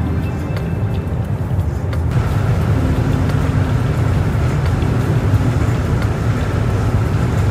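High-speed passenger train in motion, heard from inside the carriage as a steady low rumble. The sound changes in character about two seconds in.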